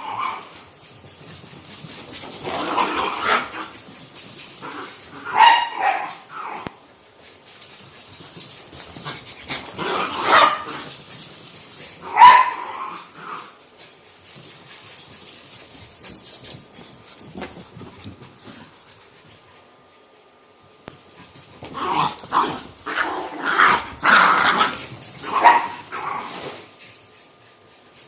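Two dogs barking and yipping in play, in repeated bursts, with a quiet lull about two-thirds of the way through before a final run of barks.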